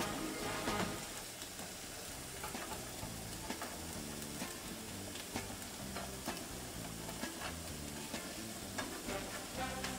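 Diced onion, tomato and chipotle sizzling in a little olive oil in a nonstick frying pan while a plastic slotted spoon stirs them, with short clicks and scrapes of the spoon against the pan.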